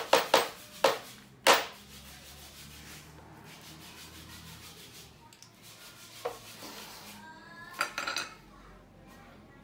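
Knocks and clatter from computer-table parts being handled during assembly: five sharp knocks in the first second and a half, a single softer knock later, and a short ringing metallic clink near the end.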